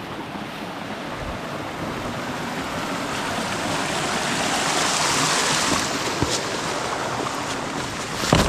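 Wind rushing over the microphone, swelling to a gust in the middle and easing off, with a few sharp clicks near the end.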